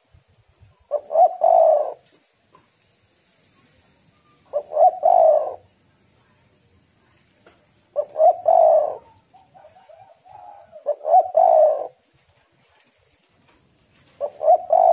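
Spotted dove (tekukur) cooing: five coo phrases, each about a second long and split into two or three parts, repeated about every three seconds, with softer coo notes between the third and fourth. The uploader bills it as the call of a female in breeding condition.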